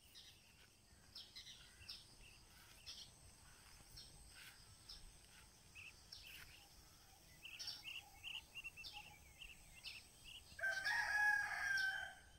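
Faint scattered chirping of small birds, with a rooster crowing once near the end, the loudest sound, lasting about a second and a half.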